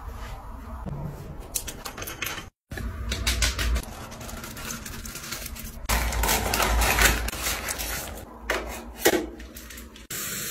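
Close-up clicks, taps and rustles from short clips cut together: a run of sharp clicks, a louder rustling stretch, then a few more taps. Near the end a steady hiss starts abruptly.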